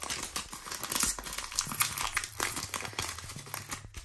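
Foil trading-card booster-pack wrapper crinkling and tearing as it is worked open by hand: a dense, continuous run of crackles. The foil is tough to rip.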